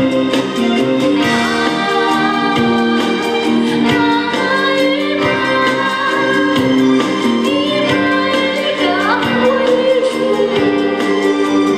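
A woman singing a melody into a microphone, over instrumental accompaniment with a steady beat.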